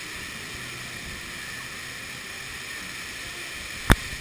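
Steady rushing noise of wind past the camera and spraying fountain water as a chain swing ride circles, with one sharp knock near the end.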